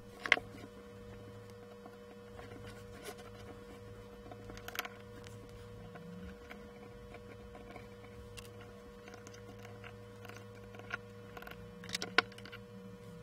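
Light clicks and taps from small screws and a machined aluminium optical block being handled, with sharper knocks just after the start, about five seconds in and near the end, over a faint steady hum.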